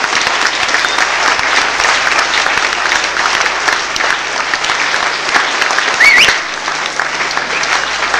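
Audience applauding steadily: many hands clapping at once. About six seconds in, a brief high call rises in pitch over the clapping.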